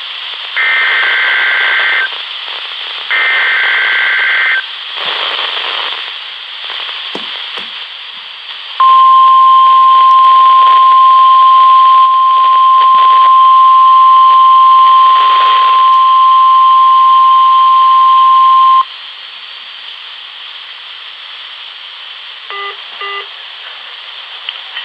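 NOAA Weather Radio weekly test signal coming through a portable weather radio's small speaker. First come two bursts of SAME digital header tones, then hiss, then the 1050 Hz warning alarm tone held steady for about ten seconds. Near the end come a few very short end-of-message bursts.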